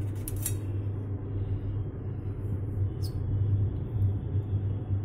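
Steady low hum with a few light clicks of a steel plate being handled, two near the start and one about three seconds in.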